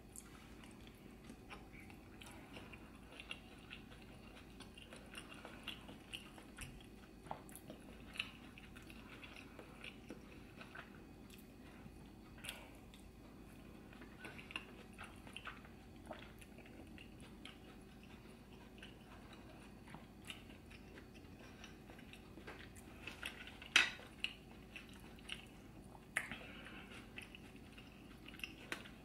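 A person chewing and smacking their lips while eating a seafood boil in butter sauce, with many short wet mouth clicks at irregular intervals and one sharper, louder smack late on.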